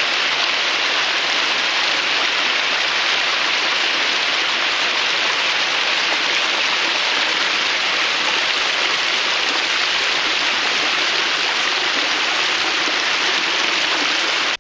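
Small stream pouring down a little cascade over mossy rocks, heard up close: a steady, loud rushing splash of water.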